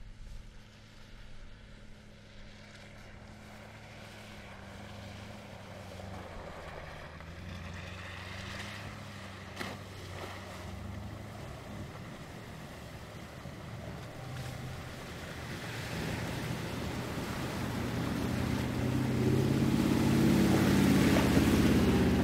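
Mercedes G500's V8 engine running as the SUV drives slowly through a muddy water crossing, with water sloshing under the tyres. It grows steadily louder as it approaches and is loudest as it passes close near the end.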